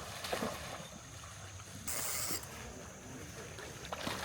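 Riverside ambience: a steady rush of flowing river water and wind on the microphone, with a brief louder rush of noise about two seconds in.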